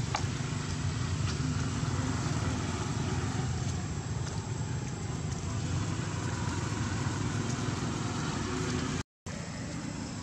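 Steady low rumble of an engine running nearby. The sound cuts out completely for a moment near the end.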